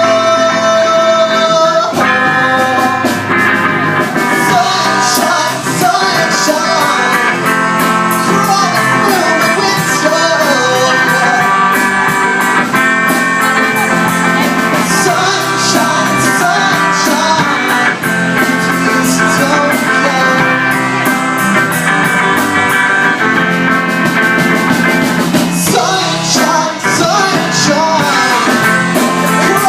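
Rock song playing, with guitar and steady drums and cymbals, in a stretch without clear lyrics.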